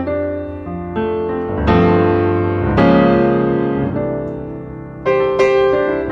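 Background piano music: slow chords struck every second or so, each left to ring and fade away.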